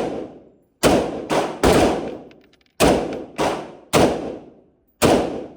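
Firearm shots fired in an uneven string, seven in all, each with a long echoing tail.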